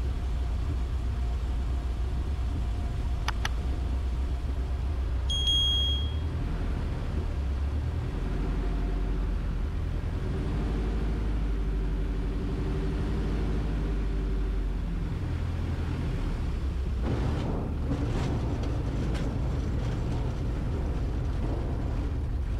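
Bearhawk Patrol's piston engine and propeller running at reduced power through approach and landing, the note shifting a couple of times as the power is changed. There is a short high beep about five seconds in, and a run of knocks and rattles near the end as the wheels touch down and roll on gravel.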